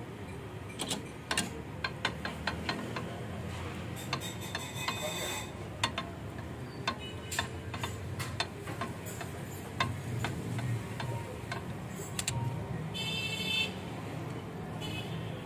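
Irregular metallic clicks and taps of hand tools working on a tractor's exposed cylinder head and valve gear, over a steady low hum. A brief high ringing sounds about thirteen seconds in.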